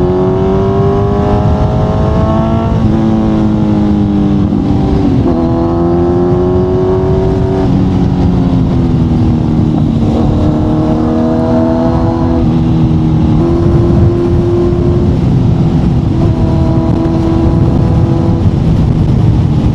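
Kawasaki Z900's inline-four engine running through an Akrapovic exhaust, heard from the rider's seat while riding. The engine note climbs and falls with speed and steps abruptly several times as the gears change. A steady rush of wind noise runs underneath.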